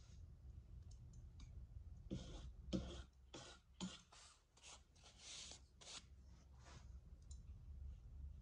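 A hand tool scratching and scraping unfired clay in a quick run of about nine short strokes in the middle, with faint handling taps before and after.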